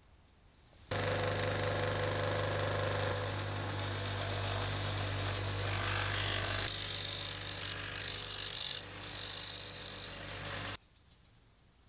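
Ryobi scroll saw running with a steady motor hum and rattle as its blade saws through a block of marbled cheese. It starts suddenly about a second in and stops abruptly near the end.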